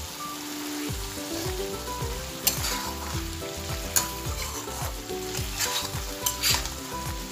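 Fried fish pieces and diced cucumber sizzling in a hot wok while a metal spatula stirs them. The spatula clacks sharply against the pan a few times.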